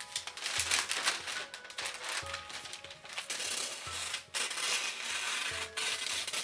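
Paper rustling as a sheet of washi wrapping paper is smoothed by hand, then scissors gliding through the paper in long swishes a few seconds in, over soft background music with a slow low pulse.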